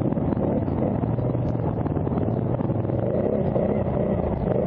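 ATV engine running steadily, close and loud.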